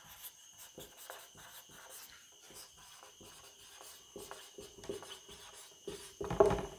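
Marker pen writing on a whiteboard: a run of short rubbing strokes across the board, with a louder thump near the end.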